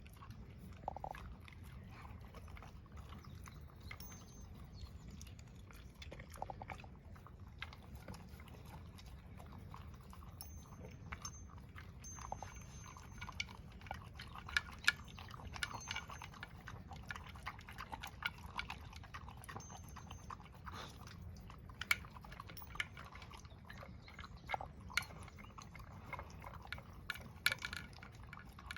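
A dog eating, with irregular short wet clicks and smacks of chewing and licking scattered throughout.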